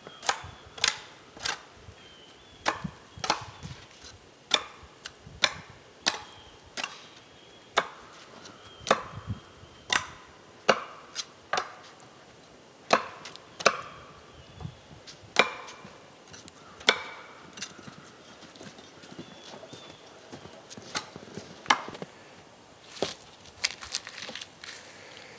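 Axe chopping into a wooden pole, a sharp crack with each stroke, about one stroke every half second to second. There is a pause of a few seconds, then a couple more strokes and, near the end, a run of lighter, quicker wooden knocks.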